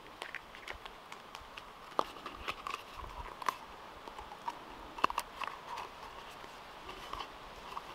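Scattered light clicks and knocks of a hard plastic folding cup being handled, lifted off a metal cook pot and its fold-out handle worked.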